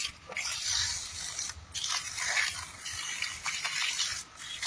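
Irregular scraping and rubbing.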